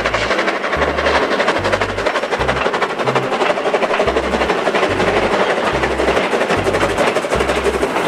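Steam locomotive working: a dense rush of steam and rapid clatter. Underneath runs background music with a steady, repeating bass beat.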